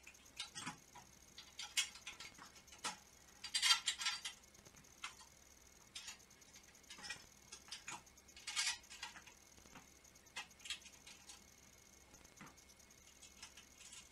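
Scattered light clicks, clinks and short scrapes of hardware being fitted by hand to a go-kart chassis's wheel bracket, with two longer rattling scrapes, about four seconds in and near nine seconds.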